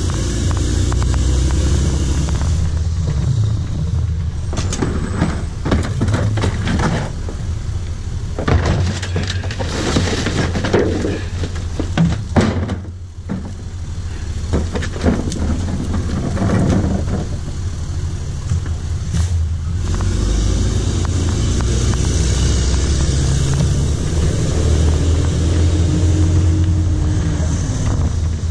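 Rear-loader garbage truck engine running with a steady low rumble, while recyclables (cardboard boxes, paper and plastic bottles) are tipped into the hopper, clattering and rustling in a busy stretch from about four to seventeen seconds in.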